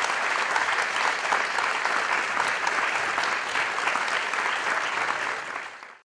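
Audience applauding: dense, steady clapping of many hands that eases off a little near the end and then cuts off suddenly.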